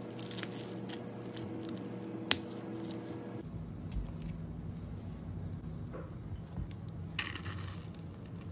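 Light handling sounds of a paper drink carton on a desk: small rustles and a few sharp clicks, the sharpest about two and a half seconds in, over a faint steady hum.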